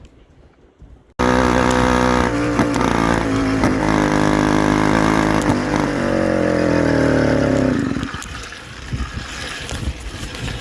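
49cc two-stroke motorized-bicycle engine running, coming in abruptly about a second in, its pitch rising slightly near six seconds, then dropping away shortly before eight seconds to quieter, irregular noise.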